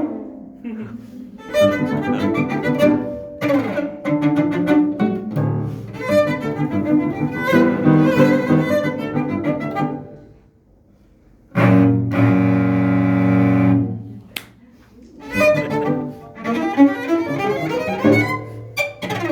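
Cello played with the bow in a busy passage that breaks off briefly about ten seconds in. One long held note follows, then the playing picks up again.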